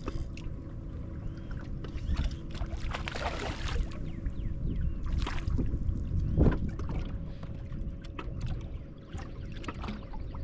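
Wind rumbling on the microphone and water lapping at a bass boat's hull, under a faint steady hum. A short rush of noise comes about three seconds in and a loud thump about six and a half seconds in.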